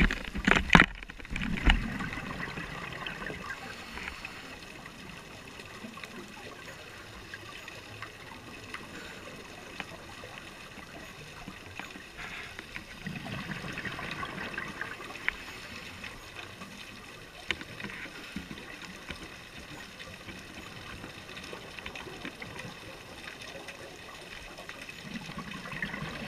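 Muffled underwater sound heard through a camera housing: a scuba diver's exhaled bubbles gurgle up from the regulator in slow swells, at about 1 s in, about 13 s in and again near the end. A few sharp knocks come at the very start.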